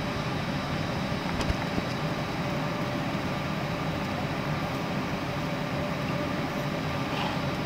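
Steady airliner cabin noise: an even rush of air with a low hum underneath, and a single click about one and a half seconds in.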